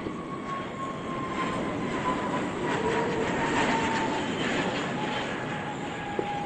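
Jet airliner's engines passing: a steady rushing noise with a thin whine that slowly drops in pitch.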